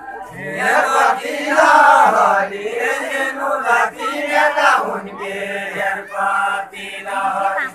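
Deuda folk song singing: voices chanting a verse in several long phrases, with held notes that bend in pitch.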